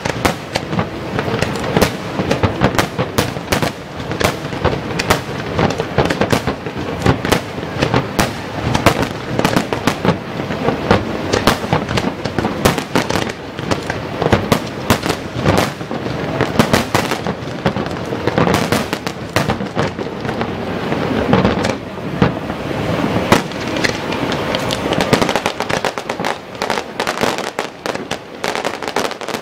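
Aerial fireworks display: a dense, continuous barrage of shell bursts, many bangs each second with no letup.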